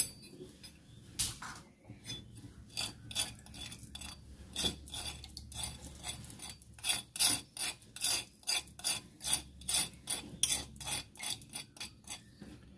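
Metal spoon scraping powdered bird feed off a stone mortar into a plastic cup: a run of short, quick scrapes that come faster and louder in the second half.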